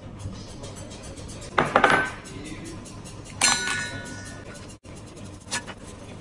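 Eggshell halves dropped into a stainless steel bowl, which clinks and rings briefly, twice, about a second and a half apart. A lighter tap follows near the end.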